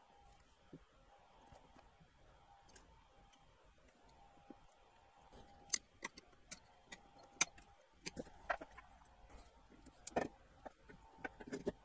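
Sharp snips of side cutters clipping the excess leads of freshly soldered capacitors on a circuit board: about eight or ten separate clicks in the second half, after a nearly quiet first half.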